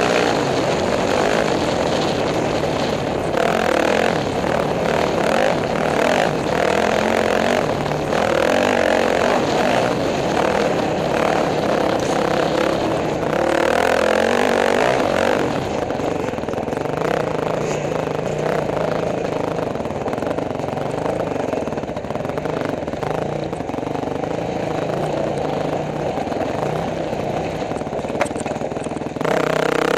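Off-road racing motorcycle engine running hard under a helmet-mounted camera, the revs rising and falling as the rider works the throttle over rough desert trail.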